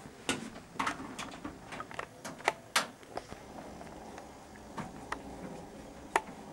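Irregular clicks and knocks of hands handling computer parts and cables, several in quick succession in the first three seconds and one more sharp click near the end.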